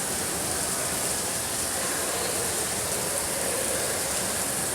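Steady, even rushing noise with a hiss on top and no distinct knocks, chimes or tones.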